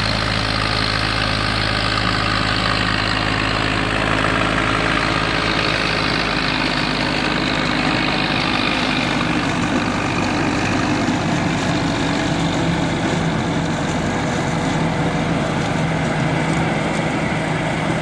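Diesel tractor engine running steadily with machinery noise over it; the engine note rises somewhat about halfway through.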